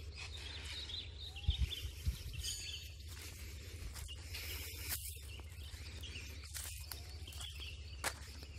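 Faint outdoor field ambience: a steady low rumble with a few faint bird chirps and a couple of soft low thumps about one and a half and two seconds in.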